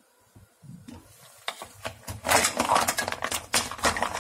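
Green-lipped mussel shells clattering against each other and the pot as they are stirred with a wooden spatula in simmering red wine: a quick, uneven run of clinks and knocks that starts about a second and a half in, after a near-silent start.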